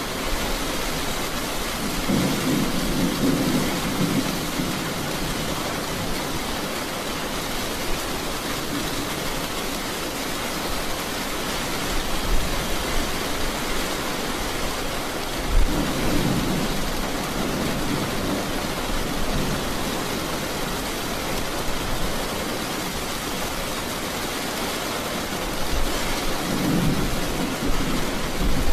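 Steady rain with rumbles of thunder: one rolls in about two seconds in, another around the middle, and a third near the end.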